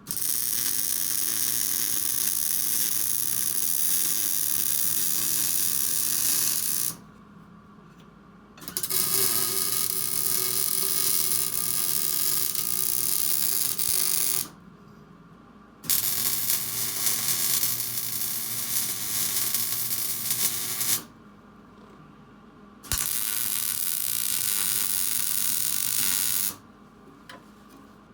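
MIG welder laying beads: four runs of steady crackling arc, each a few seconds long, starting and stopping abruptly with short pauses between.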